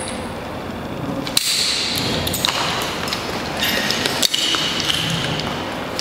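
Metal climbing hardware, carabiners and rope-access devices, clinking and knocking together as it is handled on the harness. There are a few sharp knocks, some followed by short high ringing pings.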